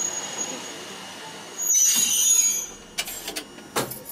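Fukui Railway type 770 tram's air brakes letting out a loud hiss for about a second, about two seconds in, as the tram comes to a stop, followed by a few sharp clicks and knocks.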